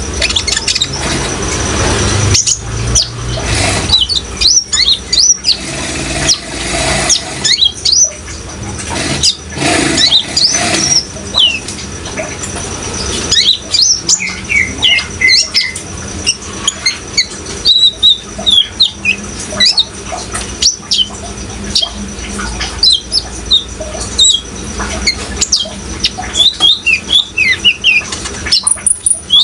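Kolibri ninja sunbird calling with many short, rapid, high chirps and twitters over a steady wash of running water. There are a few louder splashy rushes in the first ten seconds.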